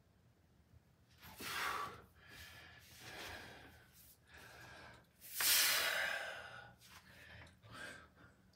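A man breathing forcefully in and out while flexing through bodybuilding poses, about six heavy breaths, the loudest a long exhale about five seconds in.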